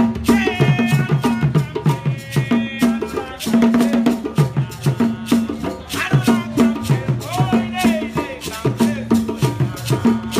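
Live hand-drum ensemble music: goblet-shaped hand drums played in a fast, steady rhythm with a shaker rattling along and voices singing over it.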